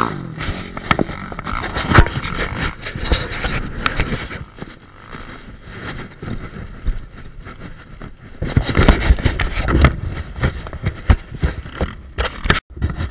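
ATV moving over a rough dirt track: engine noise under a noisy rush, with frequent knocks and rattles.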